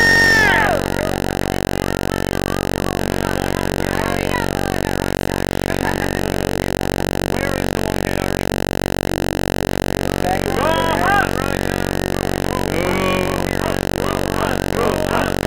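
A steady, loud, unchanging drone with many evenly spaced overtones, like a hum or buzz, with brief snatches of distant voices about ten and thirteen seconds in.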